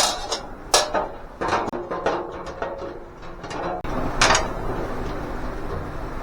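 Sheet-metal welding-cart parts and hardware being handled during assembly: a string of sharp clanks and knocks, several in the first two seconds and a louder one about four and a half seconds in.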